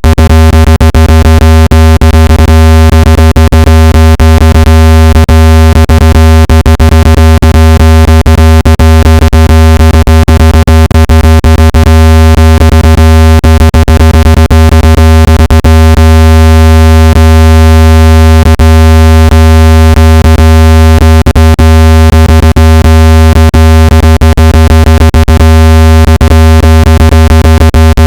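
Loud, steady, low-pitched electronic tone with overtones above it, peppered with frequent brief clicks: a speaker water-ejection tone, the low vibration meant to push water out of a phone speaker.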